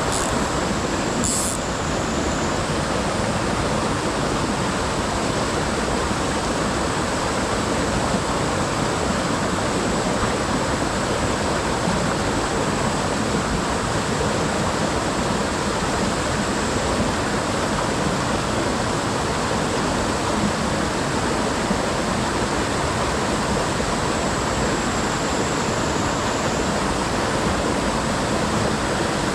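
Mountain stream rushing steadily over rocks, a loud, even hiss of water.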